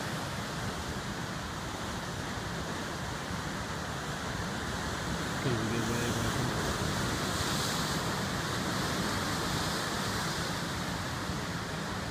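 Pacific surf breaking and washing over shoreline rocks, a steady rush that swells for a few seconds in the middle. A brief voice-like sound about five seconds in.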